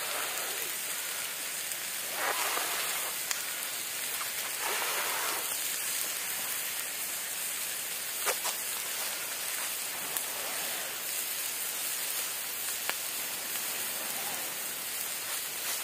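Small wood campfire burning with a steady hiss and a few sharp crackles.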